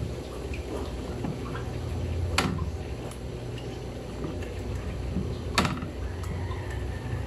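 Utensils working butter on a wooden cutting board, with two sharp knocks about three seconds apart, over a steady low background rumble.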